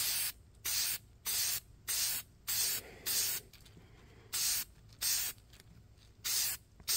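K&N aerosol air-filter oil sprayed in about a dozen short bursts onto the outside pleats of a reusable cotton performance air filter, row by row, with a longer pause a little past halfway. The bursts are kept short so the filter is oiled sparingly and not oversaturated.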